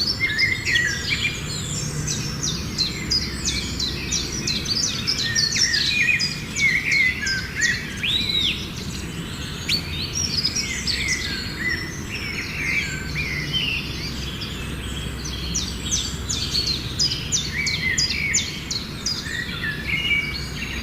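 Many small birds chirping and twittering together in a dense, unbroken chatter of short, high calls and quick rising and falling notes.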